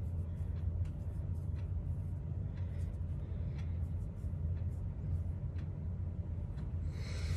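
A steady low hum, with faint scattered light taps and rubs as a fingertip picks up matte eyeshadow from a palette and swatches it onto the forearm.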